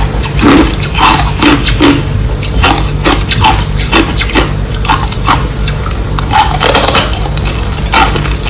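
Close-up crunching of crushed ice being chewed, a quick run of crisp crunches about two to three a second.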